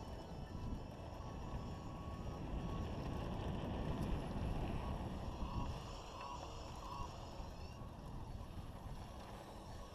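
Wind buffeting the microphone of a helmet-mounted camera on a mountain bike descending a dirt trail, with the tyres rolling over the dirt underneath; it swells to its loudest about four seconds in, then eases.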